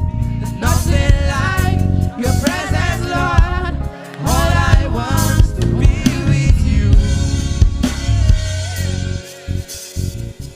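Live band playing a worship song: a singing voice over drum kit and bass. The singing drops out about eight seconds in and the band thins out, with gaps near the end.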